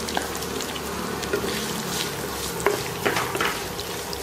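Chopped onions sizzling in hot oil in a nonstick pan, with a few scraping strokes of a wooden spatula stirring them in the second half.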